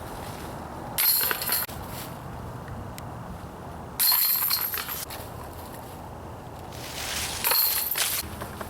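Disc golf discs hitting the chains of a metal basket one after another: three sudden metallic chain rattles about three seconds apart, each jingling for about a second.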